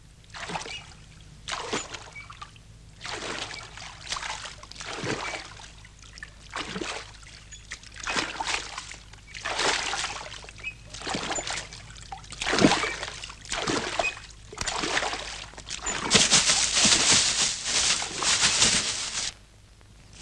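Water splashing in a pond in repeated strokes, about one every second and a half and growing louder, then about three seconds of continuous heavy splashing that stops abruptly near the end.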